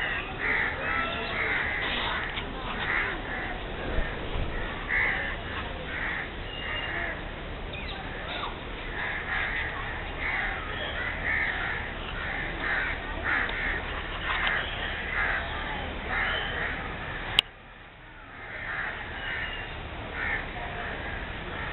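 Birds calling over and over, one or two short calls a second. A sharp click comes about three-quarters of the way in, after which the calls drop away for a moment before starting again.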